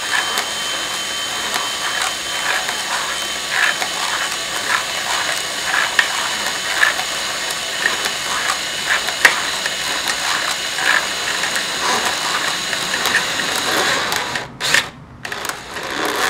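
Cordless drill running steadily in reverse, turning a 3D-printed jig that winds string trimmer line onto a Black & Decker AF-100 auto-feed spool, with light irregular clicking over the motor's whine. About two seconds before the end the drill stops and is run in a few short bursts.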